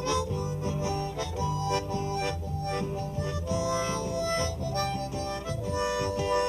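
Harmonica playing a melody of held, wavering notes, with a low bass line stepping beneath it in a folk-blues tune.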